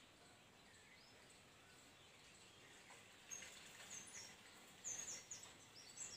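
Near silence, then from about three seconds in a bird chirping faintly in short, high notes repeated a few times a second.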